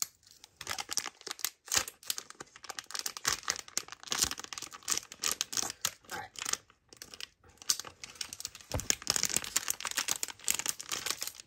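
Wrapper of a Teenymates figure pack being crinkled and torn open by hand: a dense run of crackling and ripping with a few short pauses.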